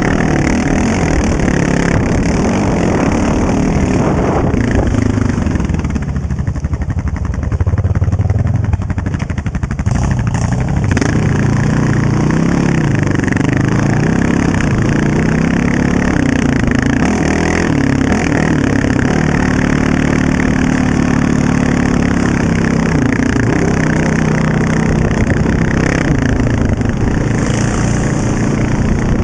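A Honda TRX700XX quad's single-cylinder four-stroke engine running under way, its pitch rising and falling with the throttle. It eases off about six seconds in and revs back up around ten seconds.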